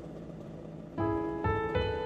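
Background piano music. Held notes fade softly, then new notes are struck about a second in, followed by a few more in quick succession.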